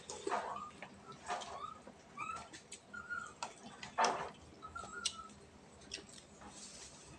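Mealtime eating sounds: a spoon scraping and clinking on plates and dishes, with chewing and lip smacking, the loudest scrape about four seconds in. Several faint, short chirps from an animal sound between them.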